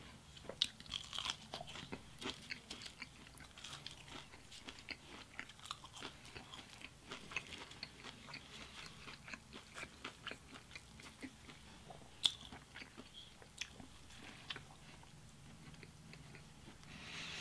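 Close-miked mouth sounds of a person biting into and chewing a bacon cheeseburger: many small, irregular wet clicks and smacks, with one sharper click about twelve seconds in.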